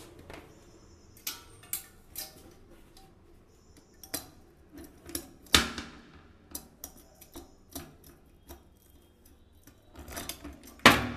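Plastic toilet seat and lid and a metal bidet-jet bracket clicking and knocking against a ceramic toilet bowl as they are handled and set in place. The loudest knock comes about halfway through, with another sharp knock near the end.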